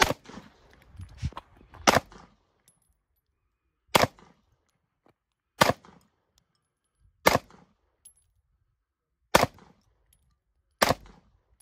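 Slow single shots from a SAR9 9 mm pistol, about eight in all, spaced roughly one and a half to two seconds apart, each a sharp crack.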